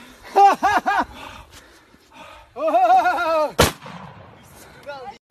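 A single shotgun shot, sharp and very brief, a little past the middle. Before it come bursts of short, repeated pitched calls and then one longer drawn-out call; these calls are louder than the shot.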